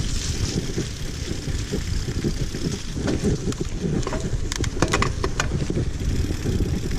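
Mountain bike rolling over rough ground with wind buffeting the action-camera microphone: a steady low rumble, with a few sharp clicks or rattles near the middle.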